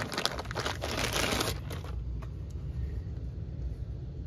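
Clear plastic zip-lock bag crinkling as it is handled, dense and crackly for about the first second and a half. After that it dies down to a few faint clicks.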